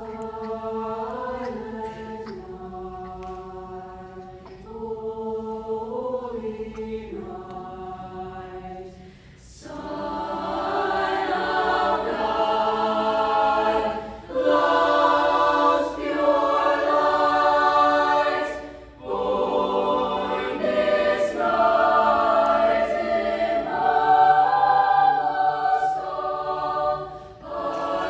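High school choir singing: a softer single line for about the first nine seconds, then the full choir comes in louder in several parts, with short breaks between phrases.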